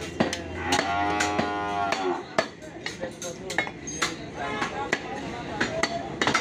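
Butcher's knife chopping and slicing beef on a wooden log chopping block, a run of sharp knocks throughout. About a second in, a drawn-out call lasting just over a second sounds over the chopping.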